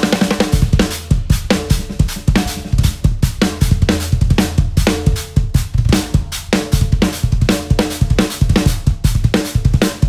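Solo on a DW drum kit with Meinl cymbals: fast strokes across bass drum, snare and toms, with the bass drum pedal driving a steady low pulse. A cymbal rings out in the first second and fades.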